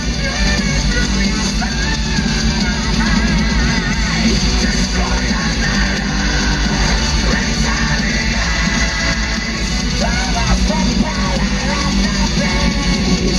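Live heavy metal band playing with guitars and sung or yelled vocals over it, loud and continuous.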